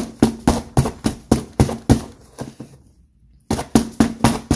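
A metal spoon stabbed repeatedly into a taped cardboard box to break it open: sharp jabs at about four a second. They pause for about a second past the middle, then start again in a fast run.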